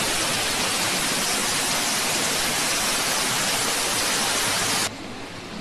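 Tall indoor waterfall: a steady, loud rush of falling water and spray. It cuts off suddenly near the end, leaving a much quieter hiss.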